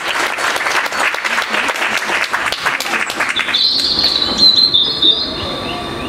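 Audience applauding, stopping about three and a half seconds in. A wheeled stage set piece is then rolled across the stage with a high squeal from its casters and a low rumble.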